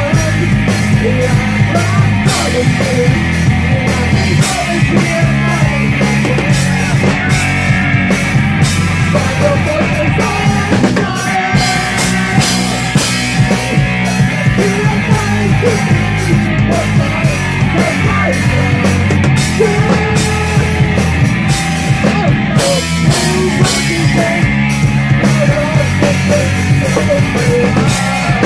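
Live rock band playing loud: a drum kit keeping a steady beat under electric guitar.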